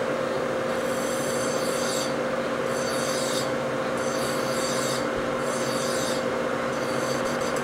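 Hand file stroked against a metal shaft turning in an Emco V13 lathe, about five scraping strokes roughly a second apart, over the steady hum of the lathe running at slow speed. The file is deburring the part and taking it down a hair to fit a universal joint.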